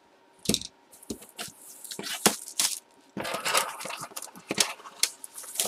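Hands handling a shrink-wrapped trading-card box, the plastic wrap crinkling and scraping, with scattered sharp clicks that come thicker from about three seconds in.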